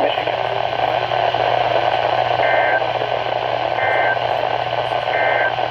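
Weather radio receiver hissing with static over a low hum, with three short electronic beeps evenly spaced about a second and a half apart in the second half.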